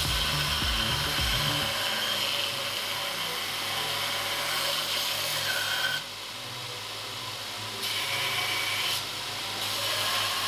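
Bench grinder converted to a 2x42 belt grinder, its belt grinding a small metal bar pressed against the small contact wheel with a steady, rasping noise. The grinding stops suddenly about six seconds in as the bar is lifted away, then resumes in two shorter passes.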